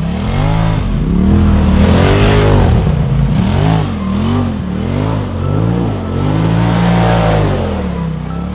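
Polaris RZR side-by-side engine revving up and down over and over as it spins its tires in the snow, with a run of quick short revs in the middle and a longer steady pull near the end.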